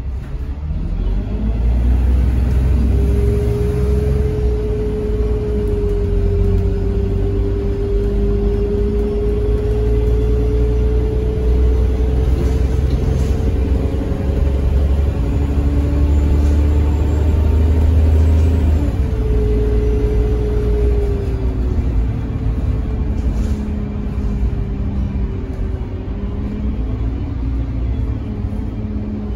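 Alexander Dennis Enviro300 single-deck bus's diesel engine heard from inside the passenger saloon, running at very high revs under acceleration. The engine note rises in the first couple of seconds and holds high and steady for about ten seconds, drops to a lower note around the middle, then eases off toward the end over a continuous low rumble.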